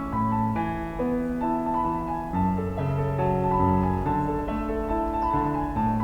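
Background piano music, slow held chords and melody notes.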